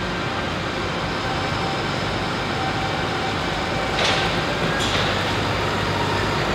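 New Holland T7.315 tractor's six-cylinder diesel running steadily as the tractor drives slowly on a concrete factory floor. About four seconds in, the sound turns abruptly brighter and hissier.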